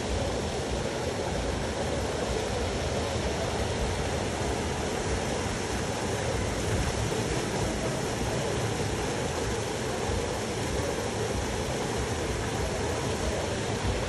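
Steady rush of river water flowing over rocks and small cascades.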